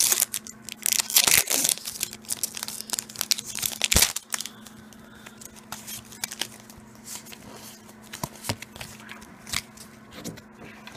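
A plastic Pokémon booster pack wrapper being torn open and crinkled in loud, crackly bursts for about the first four seconds. Then come softer, scattered clicks and rustles as the cards are slid out and handled.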